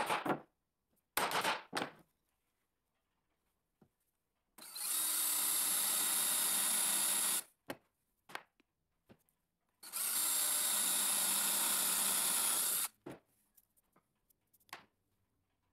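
A few hammer knocks near the start, then an electric drill running in two steady spells of about three seconds each, boring into a wooden board.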